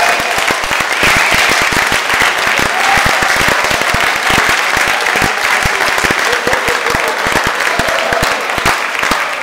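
Audience applauding: a dense, steady run of clapping with many sharp individual claps standing out.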